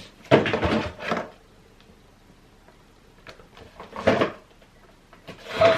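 A box being opened and its contents handled: a few short scuffs and knocks, the longest about a third of a second in, another around four seconds, and one near the end.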